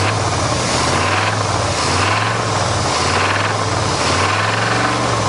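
Throttle-body-injected V8 of a 1988 Chevy pickup running and being revved up and down several times, with a knock the owner takes for rod and crank knock from probably spun bearings.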